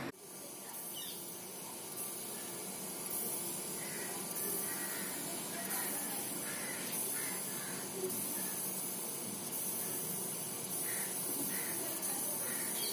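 Steady hiss with faint, short bird calls several times in the middle and near the end.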